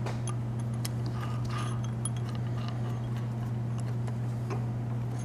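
Light metallic clicks and clinks as a short steel machine reamer is handled and set in place for reaming a hole, over a steady low hum.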